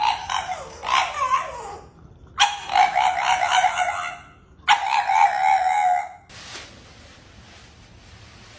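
A dog howling in three drawn-out bouts, the first wavering and gliding in pitch, the last ending about six seconds in.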